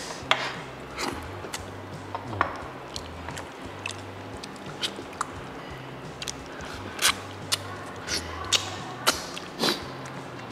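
Wet mouth sounds of someone eating curried snapper head with the fingers: scattered lip smacks and chewing clicks, a little more frequent near the end. Background music with a steady bassline runs underneath.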